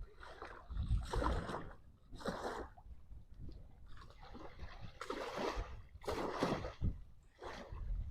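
Choppy water splashing and sloshing in irregular surges, with strong wind buffeting the microphone and adding a low rumble to each surge.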